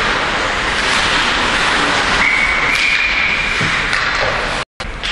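Referee's whistle blown once, about two seconds in, held for about a second and a half to stop play in an ice hockey game, over a steady rink noise. The sound cuts out for a moment near the end.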